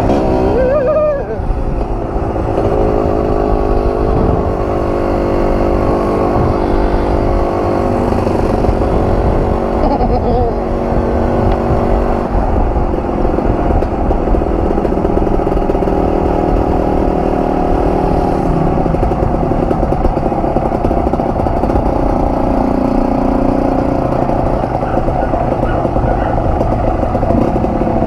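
Kawasaki KMX 125's two-stroke single-cylinder engine running under way, its pitch rising and falling with throttle and gear changes, over a steady low rumble.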